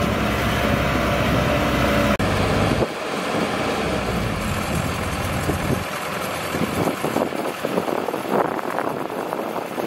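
Heavy diesel engines running: a loaded dump truck with an excavator close by. After a sudden cut about two seconds in, the dump truck is heard driving away over dry dirt, quieter and with less low rumble.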